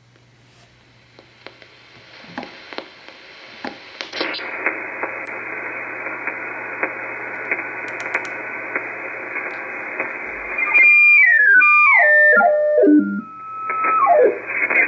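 Reuter RDR54 software-defined receiver's audio on the 80-metre band: hiss with static crackles that narrows sharply about four seconds in as the receiver switches from AM to a 2.4 kHz lower-sideband filter. Later, tuning across signals gives a run of falling whistles, and a louder, garbled signal comes in near the end.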